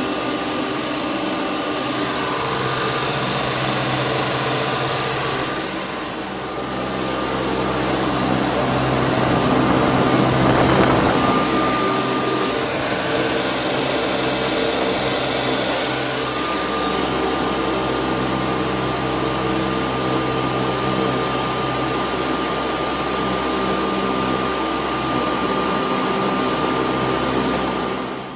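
Daikin chiller's eight-cylinder reciprocating refrigeration compressor running steadily at close range: a loud mechanical hum with a steady high whine over it, swelling a little about ten seconds in. It cuts off abruptly just before the end.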